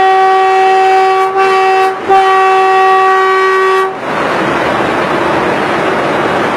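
Train horn sounding one steady pitch, broken twice by short gaps about one and two seconds in, then cutting off about four seconds in. After that, a steady rushing noise.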